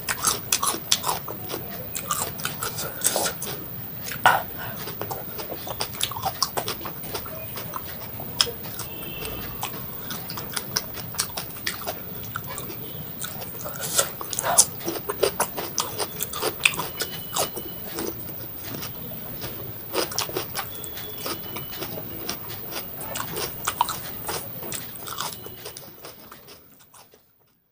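Close-miked chewing and biting of raw salad vegetables, crisp cucumber among them, with many irregular sharp crunches and wet mouth sounds. It fades out near the end.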